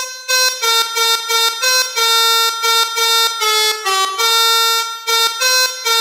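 Melodica (pianika) playing a telolet bus-horn melody in quick, separated notes with a few longer held ones, imitating a Basuri multi-tone bus horn.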